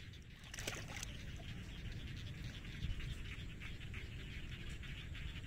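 Shallow floodwater splashing and dripping as a small fish is worked free of a gill net by hand, with a short splash about half a second in and a soft knock near the three-second mark. A steady high chirring sits behind it.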